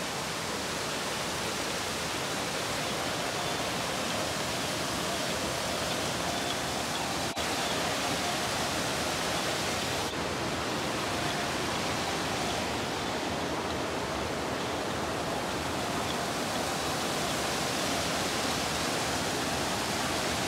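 Small mountain waterfall cascading steeply over rocks: a steady rushing of falling water.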